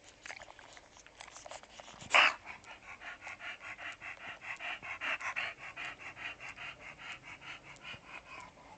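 English bulldog panting rapidly and steadily, about four breaths a second, while chewing on a worn football. A single loud, short burst of breath comes about two seconds in, just before the panting starts. In the first two seconds there are light clicks of teeth on the ball.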